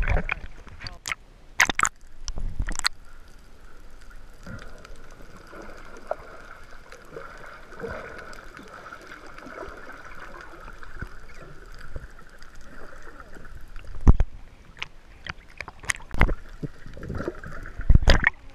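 Water sloshing and gurgling close to the microphone, with a faint steady high hum through the middle. There are sharp knocks or splashes, two early on and three more in the last few seconds.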